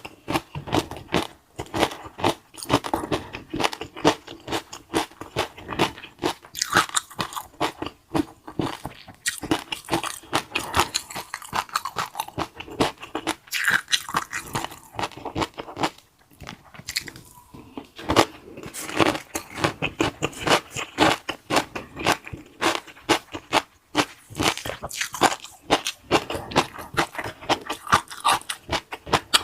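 Close-up crunchy eating: loud bites and chewing of crisp food, many sharp crackles in quick succession, with a brief lull about halfway through.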